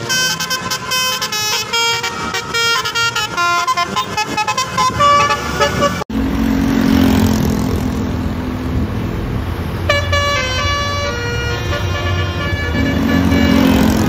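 Bus 'telolet basuri' multi-tone horns playing quick melodies of stepped notes. After a sudden break about six seconds in, a bus engine runs with a low drone, and another short horn tune sounds about four seconds later.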